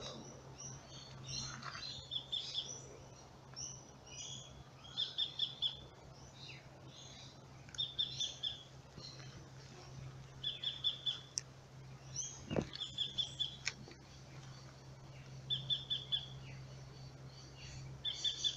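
Birds calling, one short trilled call repeating about every two and a half seconds with other chirps between, over a steady low hum. A single sharp knock about twelve and a half seconds in.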